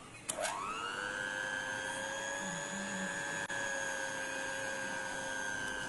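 Electric hand mixer clicked on with its beaters in thick cake batter: the motor spins up quickly to a steady high whine and runs on evenly, beating the plum-cake batter after the flour has gone in.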